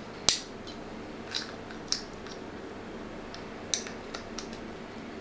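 Sharp clicks and light ticks from a Streamlight TLR-1 HL weapon light being handled in the hands, a handful of separate clicks with the loudest at the start.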